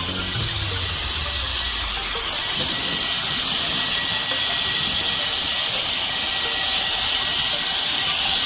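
Cordless electric air duster running steadily: a rush of blown air with a thin, high motor whine.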